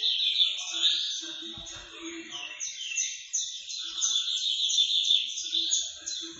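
A dense chorus of birds chirping and trilling rapidly, with short low notes repeating underneath.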